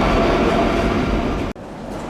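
Madrid Metro Line 2 train running through the station, a loud rumble with a steady motor whine, cut off abruptly about one and a half seconds in, leaving quieter station background.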